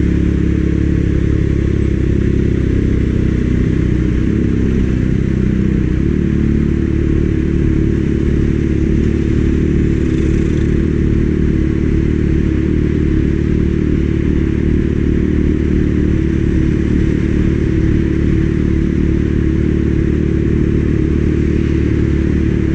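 Kawasaki Ninja ZX-6R inline-four engine running steadily while riding, with wind noise over the microphone. The engine note changes about five to six seconds in.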